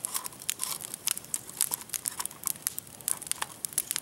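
Wood fire crackling, with many sharp, irregular pops and snaps from the burning logs and branches.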